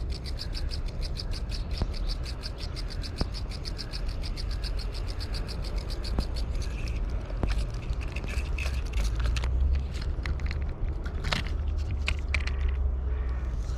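A rapid, even pulsing call of about seven high chirps a second, typical of a singing insect, that stops about six and a half seconds in. Scattered clicks and scrapes follow, over a low wind rumble.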